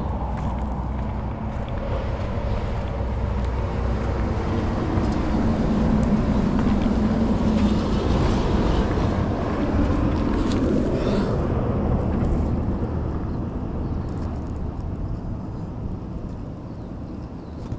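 A motor engine passing by, growing louder to a peak around the middle and then fading away.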